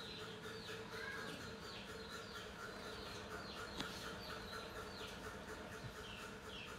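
Background chirping of small animals: a short, high, falling chirp repeated about every two-thirds of a second over a steady high drone, with one sharp click about four seconds in.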